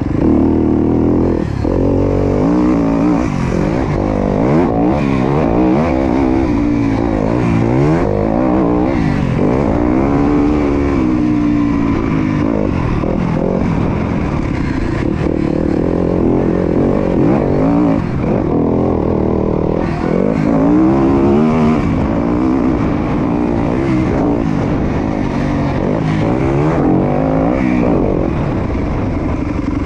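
Dirt bike engine close to the microphone, its pitch climbing and dropping back again and again as the throttle is opened and closed on a motocross track.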